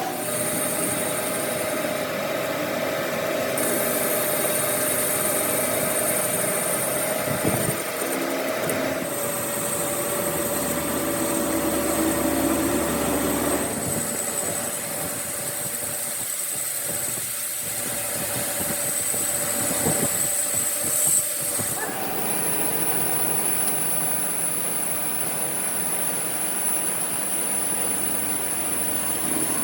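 A machine running steadily with a high-pitched whine, its tone shifting a few times.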